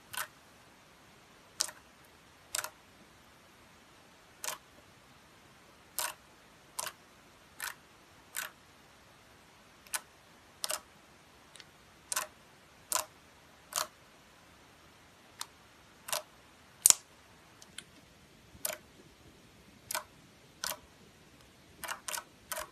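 Slime being kneaded and pressed by fingers, giving short sharp clicks and pops as trapped air pockets burst. They come irregularly, about one a second, with a quick cluster near the end.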